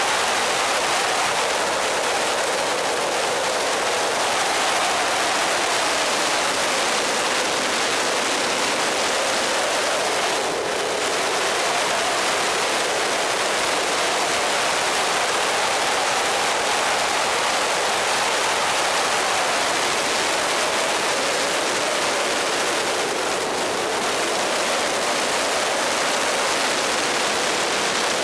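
Wind rushing over an onboard camera mounted on an electric racing motorcycle at track speed. Under it, the bike's electric motor whines faintly, rising and falling in pitch as the bike speeds up and slows for corners. The rush dips briefly twice.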